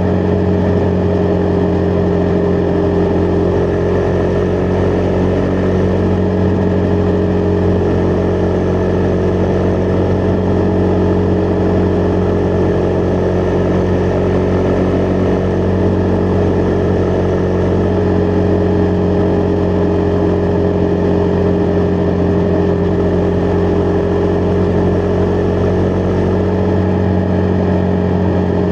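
Husqvarna Vitpilen 401's single-cylinder engine running at a steady cruise, its note holding nearly constant pitch, with wind and road noise behind it.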